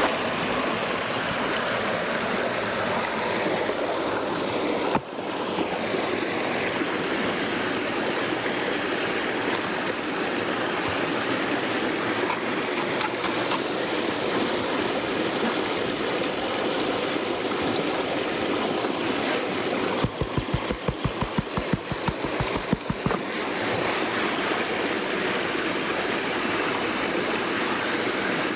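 Shallow creek water running and swirling in and around a plastic gold pan as gravel is washed in it. A steady rush of water, with a few seconds of quick, regular pulses about two-thirds of the way through as the pan is shaken.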